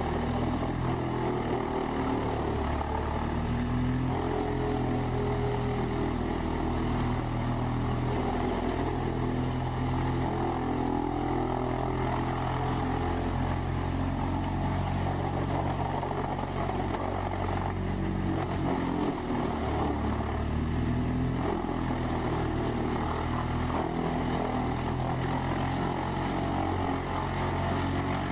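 Large whole-tree chipper running under load, its diesel engine and drum chipping trees fed in by a knuckleboom loader's grapple. A steady, loud engine drone whose upper tones waver in pitch from moment to moment.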